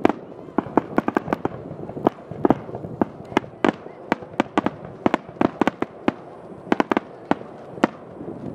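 Aerial firework shells bursting in a rapid, irregular series of sharp bangs, thinning out over the second half with the last bang shortly before the end.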